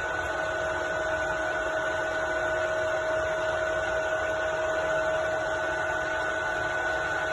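TOS Olomouc FGU 32 universal milling machine running under power: a steady mechanical hum with a constant gear whine in two pitches.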